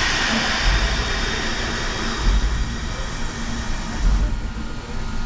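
Baldwin 2-6-6-2T Mallet steam locomotive getting under way: a loud steam hiss over slow, low exhaust beats about every one and a half seconds. The hiss eases off about four seconds in.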